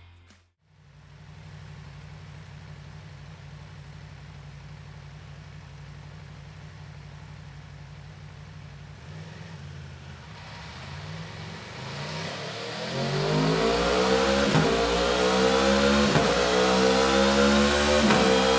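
Aprilia 1100 V4 motorcycle engine on its stock exhaust, idling steadily, then brought up in revs from about ten seconds in. Near the end it is revved repeatedly and much louder, the pitch climbing and dropping back every second and a half to two seconds.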